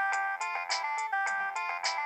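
A polyphonic ringtone playing from a Nokia 7250i's speaker: a quick synthesized melody of short stepping notes over a regular beat.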